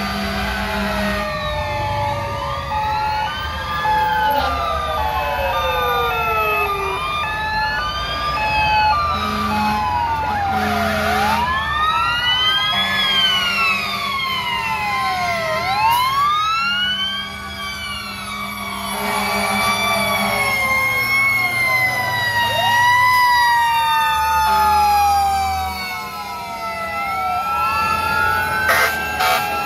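Sirens of several fire trucks and police cars passing, many wails rising and falling over one another. A choppy on-off tone runs through them for the first ten seconds or so.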